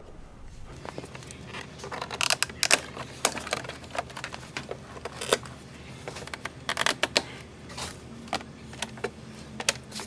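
Plastic clicks, ticks and small snaps as a trim tool pries a tab and the handle surround cover off a 2006 Chevy Silverado's interior door panel, coming in an irregular run of sharp clicks.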